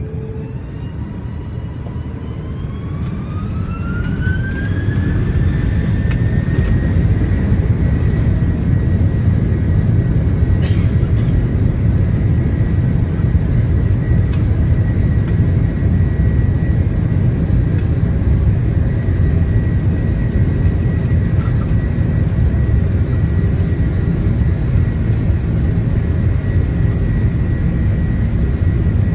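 Airbus A330-300 jet engines spooling up to takeoff thrust. A whine rises in pitch over the first few seconds and then holds steady, over a loud low rumble that grows and keeps on through the takeoff roll.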